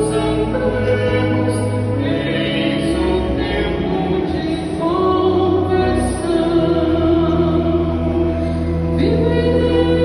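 Cathedral pipe organ playing slow, sustained chords that change every second or two.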